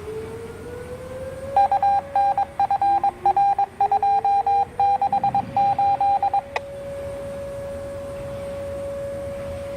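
Outdoor warning sirens winding up, their pitch rising twice and settling into a steady tone. A loud electronic tone beeps over them in rapid, uneven pulses for about five seconds and stops with a click.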